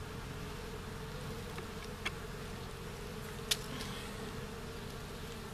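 Honeybee colony buzzing steadily around an opened hive. Two sharp clicks cut through it, the louder one about three and a half seconds in.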